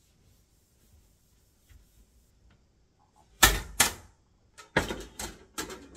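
Hinged panels of a folding range splash guard knocking and clacking against each other and the countertop as they are folded and moved. Quiet for about three seconds, then two sharp knocks about half a second apart, followed by a run of lighter clacks.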